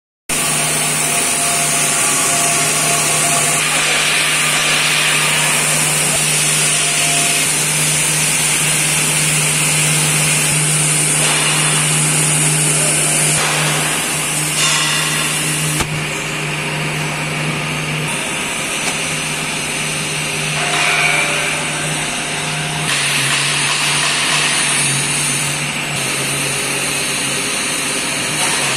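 Machinery of a milk powder mixing and packing line running steadily, with electric motors giving a constant low hum under a high hiss.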